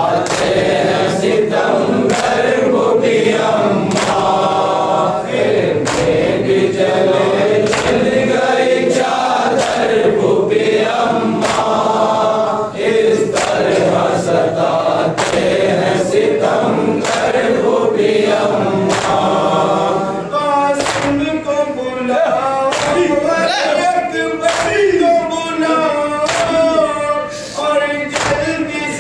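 Men's chorus chanting a Muharram lament (nauha) while beating their chests in unison (matam), a sharp slap about once a second. From about two-thirds of the way in, a single voice leads the chant over the slaps.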